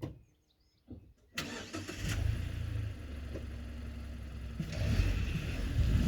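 A 2017 Mazda6's 2.0 Skyactiv-G four-cylinder engine, with a modified intake, starts about a second in: a short crank catches, the revs flare briefly, then it settles to a steady idle. Near the end a louder low rumble comes in, with wind on the microphone.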